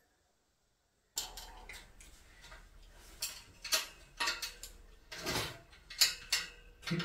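Metal clicks and clinks as an M6 bolt is turned into a steel rack joint with a screwdriver and its nut is held by hand, with several sharper knocks of metal on metal. It begins about a second in.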